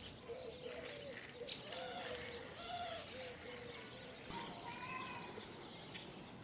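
Faint birds calling and chirping, a run of short, repeated, wavering calls.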